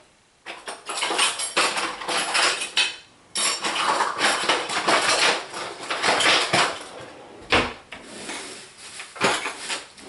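Metal cutlery clattering as a spoon is dug out of a kitchen utensil drawer: dense jangling for several seconds, then a few separate clinks.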